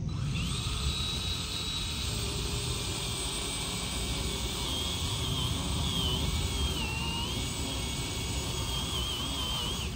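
Skil cordless pole saw running: its electric motor and chain spin up into a steady high whine, sag in pitch a few times as the chain cuts into a tree limb, then stop abruptly.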